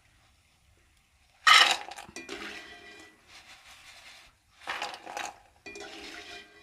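Steel wire skimmer knocking and scraping against the frying pan while fried raw-banana pieces are scooped out of hot oil: a loud clank about a second and a half in, then three shorter clattery scrapes.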